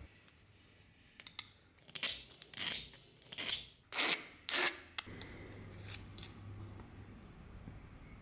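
A narrow hand file scraping across the metal end of a dagger's tang in about five short strokes, between about two and five seconds in.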